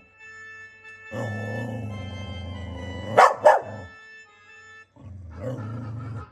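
A Ring doorbell chime tone playing an organ-like melody, with a dog barking twice at it about three seconds in. The tone starts again just before the end.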